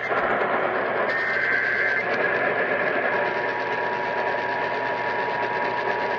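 Emergency Alert System SAME header data tones received over the radio: a harsh, buzzing, mechanical-sounding screech over static, the digital burst that opens an alert. A faint steady tone joins about three seconds in.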